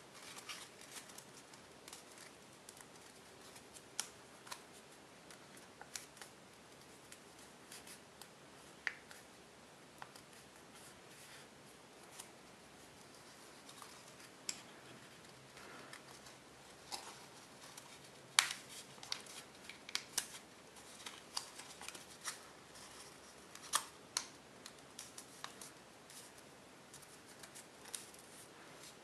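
Tissue foil origami paper crackling and rustling as it is folded and creased by hand: irregular sharp crackles, thicker and louder in the second half, the loudest about 18 seconds in.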